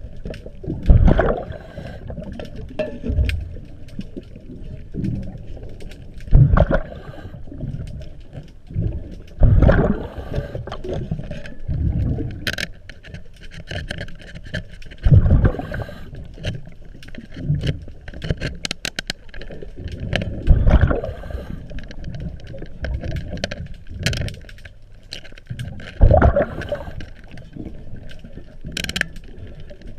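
A diver's breathing regulator underwater: exhaled bubbles rush out in a loud gurgling burst every few seconds. Between breaths come sharp clicks and scraping from hands and tools working on the propeller shaft.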